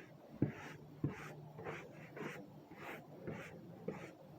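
Sawdust being brushed off a freshly sawn blue pine board in quick scratchy strokes, about two a second, with a couple of light knocks in the first second.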